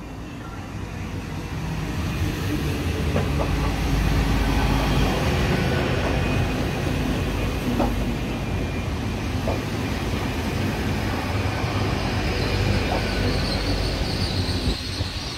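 A pair of GWR Class 802 bi-mode trains running in along the platform on diesel power. The rumble of the underfloor engines and wheels grows louder as the train draws near, with scattered clicks from the wheels over the rail. A high squeal sets in near the end.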